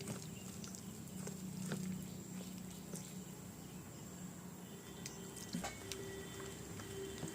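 Faint wet sounds of gram-flour batter being mixed with water in a bowl, with scattered light ticks.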